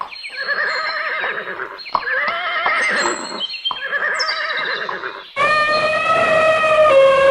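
Horse whinnying three times in a row, each a quavering, wavering neigh lasting about a second and a half. About five seconds in, a different, steady high-pitched sound starts abruptly.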